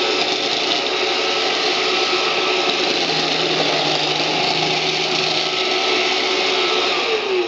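iRobot Roomba robot vacuum running its vacuum motor and brushes in a steady, loud whir, demonstrating its cleaning movements. It drops away just before the end.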